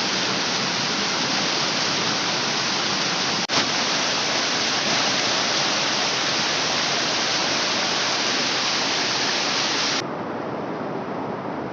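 Steady rushing of a tall waterfall. There is a brief break about three and a half seconds in, and near the end the sound abruptly turns duller and a little quieter.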